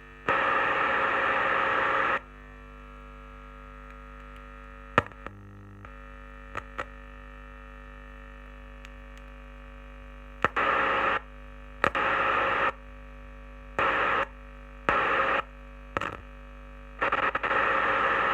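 Car stereo's FM radio, tuned to 87.5 with no station, playing static hiss through the test speaker in bursts that cut in and out abruptly, over a steady mains hum. The hiss comes through when the input side of the TDA7388 amplifier IC is touched near its input capacitors, a sign the replaced amp chip is passing sound.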